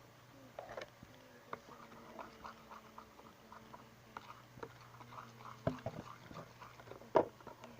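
Glue slime being mixed with borax activator while still very sticky: irregular small squelches and clicks, with two sharper snaps late on.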